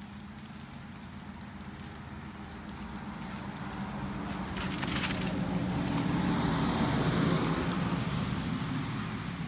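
A passing road vehicle: a low rumble that swells slowly to its loudest about seven seconds in, then fades.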